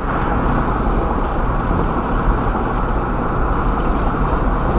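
Steady road and tyre noise of a car driving at freeway speed, heard from inside the cabin.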